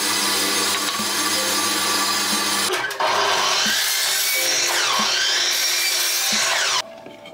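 Bandsaw cutting a slope along a length of timber, then, from about three seconds in, a mitre saw running and cutting through timber. The saw noise stops abruptly near the end, and background music plays underneath.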